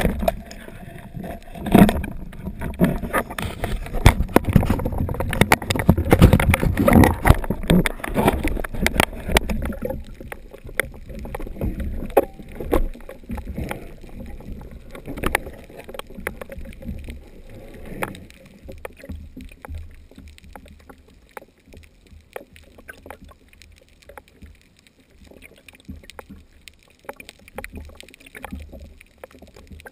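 Underwater sound on a diver's camera: heavy rushing water with irregular knocks and clatter for about ten seconds as the diver moves fast through the water, then settling to a quieter low water hiss with scattered sharp clicks.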